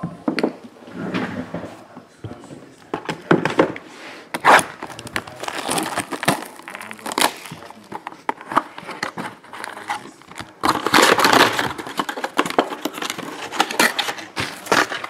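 Clear plastic shrink wrap crinkling and tearing as it is stripped off a cardboard trading-card box, with clicks and knocks as the box is handled and opened. The densest, loudest crinkling comes about two-thirds of the way through.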